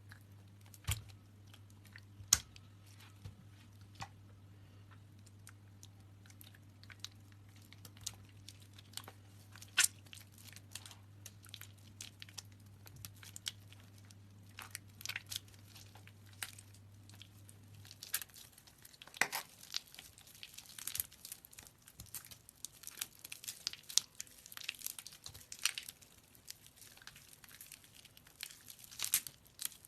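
Soaked soap being squeezed by hand: scattered crackles and a few sharper snaps, sparse at first and much denser about two-thirds of the way in. A steady low hum stops at that point.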